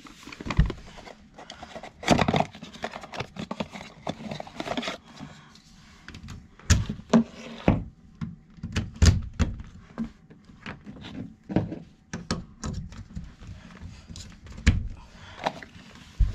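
A DEFIANT smart plug being handled and pushed into a wall outlet: a scatter of plastic clicks and knocks, with rustling over the first few seconds.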